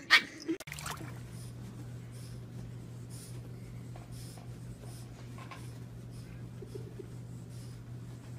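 French bulldog puppy dragging itself belly-down across a carpet: soft scratching and rubbing strokes about once a second over a steady low hum. A short burst of laughter cuts off under a second in.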